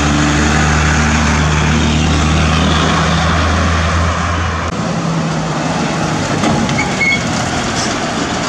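Vehicle engine running with a steady low hum over road noise. The hum stops about halfway through, leaving a steady rushing noise.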